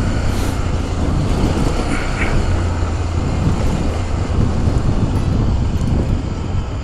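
Motorcycle riding steadily along a road, its engine running under a constant low rumble of wind on the microphone.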